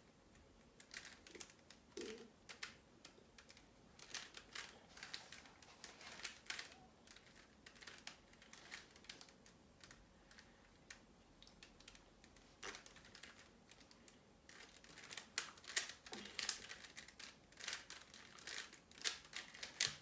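A plastic 3x3 Rubik's cube being turned by hand: faint, quick runs of clicks and clacks as its layers snap round, coming in irregular bursts with a sparser stretch in the middle.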